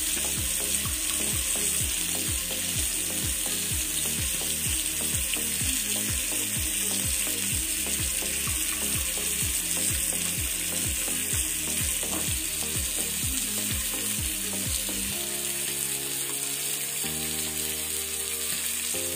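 Steady sizzling of food cooking on the stove, heard as a constant hiss. Under it runs soft background music with a beat of about two a second, which gives way to held notes about three-quarters of the way through.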